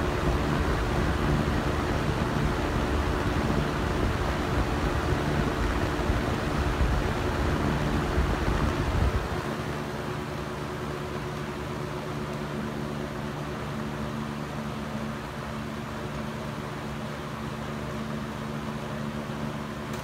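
Lakewood Model 223 box fan running steadily on high speed: a constant motor hum under a rush of moving air. For the first nine seconds, with the microphone close to the grille, the blast of air adds a heavier low rumble that then drops away, leaving the steady hum and air noise.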